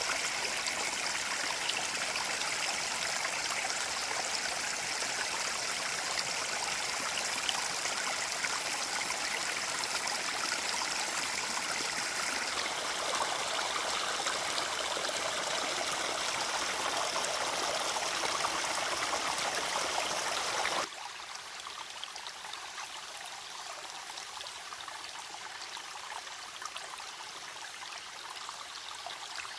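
Mountain stream flowing over rocks, a steady rush of water. The sound changes abruptly about twelve seconds in and again about twenty-one seconds in, becoming quieter and thinner after the second change.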